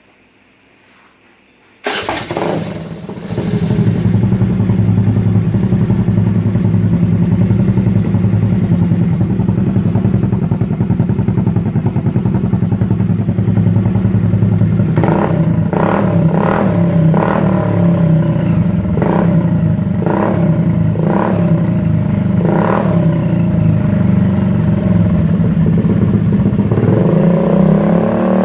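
Honda Dio scooter with an aftermarket dual-pipe exhaust silencer and dB killer, starting up about two seconds in and running steadily. Midway it gives a series of short sharp pops about once a second, and near the end the revs climb.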